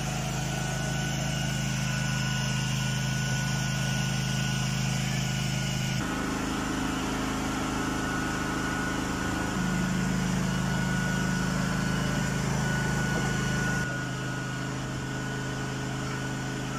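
Electric demolition hammer chiselling into concrete steps: a loud, steady mechanical hammering drone, whose tone shifts abruptly three times.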